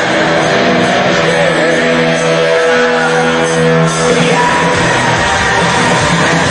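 Live rock band playing loud, distorted music over a concert PA, with singing; a run of long held notes ends about four seconds in.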